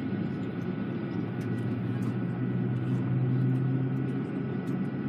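Steady cabin noise of a parked Airbus A320, with air-conditioning and ventilation hiss and a few thin steady tones. A low hum swells about a second and a half in and eases near the end, with faint small clicks over it.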